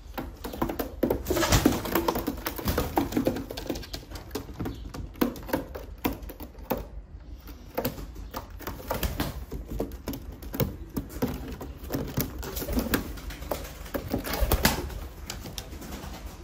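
Turkish tumbler pigeons cooing in a small loft, with scattered clicks and taps throughout.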